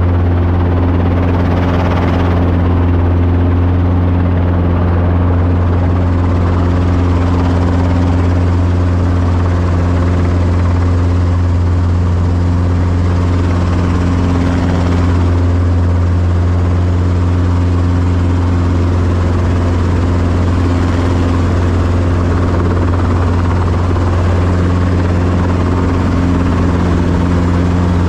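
Small two-seat helicopter heard from inside the cockpit with the doors off: rotor and engine running with a steady low hum and a constant rush of noise as it comes down slowly toward a landing in a hover.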